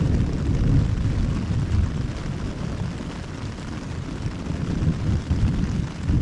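Rolling thunder from a returning thunderstorm: a long, low rumble that swells about a second in and again near the end.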